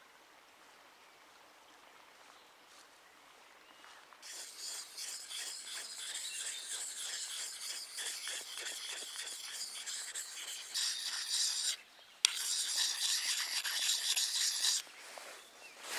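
A round pocket whetstone rubbed along the edge of a wooden-handled Scandi knife, rasping in rapid strokes. It starts about four seconds in, breaks off briefly near twelve seconds and stops near the end.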